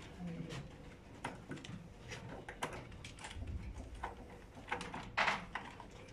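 Small clicks, taps and rustles of hands and tools working wires and terminals on a tabletop training board, irregular and scattered, with one louder, longer noise about five seconds in.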